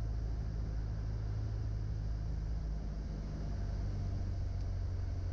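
Cessna 172 Skyhawk's piston engine and propeller running steadily at low power, heard from inside the cabin with airflow noise, as the plane floats just above the runway in the landing flare.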